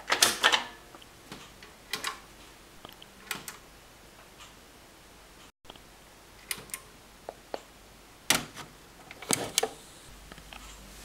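Scattered sharp clicks and taps, about a dozen in all, from hands on old computer hardware, starting with the press of a CRT monitor's front-panel button. A faint low hum comes in near the end.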